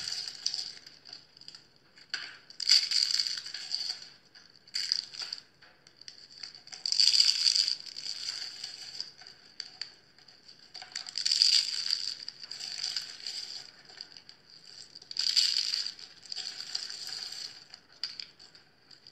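Dried, coloured soap curls crushed in a hand, crunching and crumbling. There are five loud crunches about every four seconds, with smaller crackles between them.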